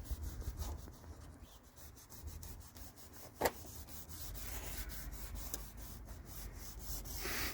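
Sandpaper being rubbed by hand over a plastic headlight lens, a steady scraping in quick repeated back-and-forth strokes. A single sharp click about three and a half seconds in.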